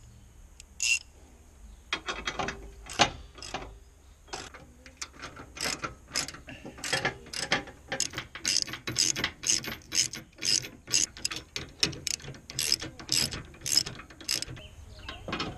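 Ratchet wrench clicking in quick repeated strokes, about three clicks a second, as the bolts on a weight distribution hitch's trailer-frame clamps are tightened.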